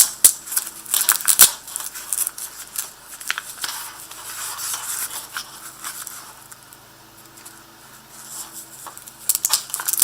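Velcro strap on a nylon knife sheath being pulled open and pressed shut, a series of short rasping rips, densest in the first couple of seconds and again near the end.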